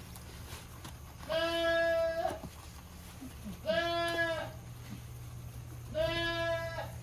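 A goat bleats three times, each call about a second long and a couple of seconds apart, over a steady low hum.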